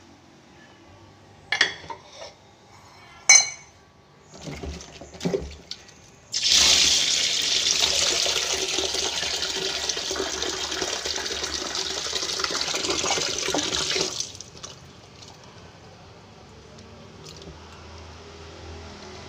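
Kitchen tap running hard into a plastic basin of chillies and spices in a stainless steel sink for about eight seconds, starting about six seconds in and shut off abruptly. Before it, a few sharp clinks of dishes or the basin against the sink.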